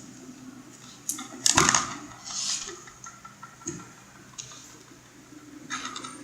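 Knocks and clatter of objects being handled, with one loud clatter about a second and a half in and a few lighter knocks and short hissy rustles around it.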